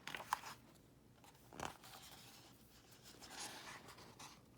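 Faint paper rustling, as when a book's pages are handled, with a few soft taps and one sharper tap about a second and a half in.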